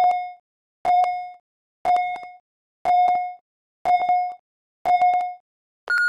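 Workout interval timer beeping its countdown: six short, identical electronic beeps about one a second. They are followed by a higher, longer tone near the end that signals the start of the lift.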